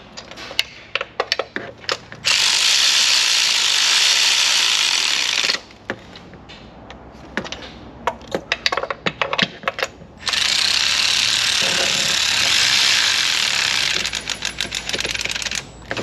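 Spark plugs being run into the cylinder heads of a Northstar 4.6 V8 on a long extension: a ratchet clicking, then a power tool running with a steady hiss for about three seconds, more ratchet clicks, and the power tool running again for about four seconds, ending in quick clicks.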